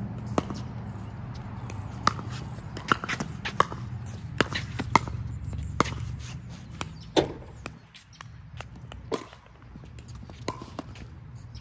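A pickleball rally: sharp, hollow pops of paddles striking the plastic ball and the ball bouncing on the hard court. There are about a dozen hits, quickest in the middle, and the rally ends about seven seconds in, with a few scattered taps after it. Under them runs a steady low rumble.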